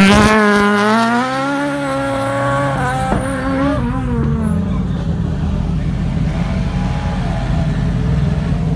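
Rally car launching from a stage start: a loud burst as it takes off, then the engine revving hard and pulling away, its pitch climbing and shifting for about three seconds before fading. After that a steady low engine rumble carries on.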